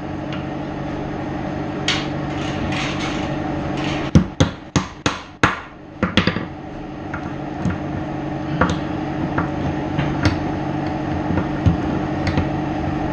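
Hammer striking a punch to drive the pins out of a mini grease gun: a quick run of about six sharp metal strikes about four seconds in, with scattered lighter knocks and clicks before and after, over a steady background hum.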